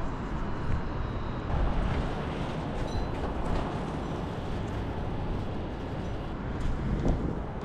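Wind buffeting an action camera's microphone: a steady, low rumbling hiss that flickers unevenly, with a faint city hum beneath.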